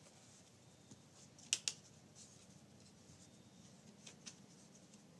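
A few faint clicks from a plastic DVD case being handled, the sharpest about one and a half seconds in and two softer ones near the end.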